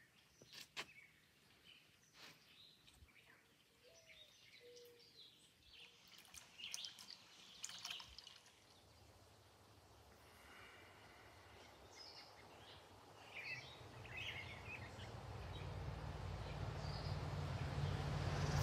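Faint bird chirps now and then. In the last few seconds a low steady hum with a rushing noise grows steadily louder.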